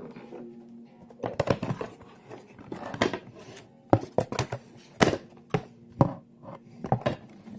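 Sharp, irregular clicks and knocks of a fixed-blade karambit knife being handled or cutting, about a dozen in all, over quiet background music.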